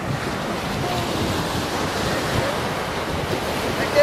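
Small waves breaking and washing up a sandy beach, a steady rush of surf, with wind buffeting the microphone.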